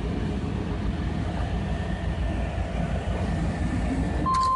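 Pickup truck engine idling with a steady low rumble, an idle the owner calls a little rough and blames on a fuel system that needs cleaning. Near the end a steady electronic warning beep starts.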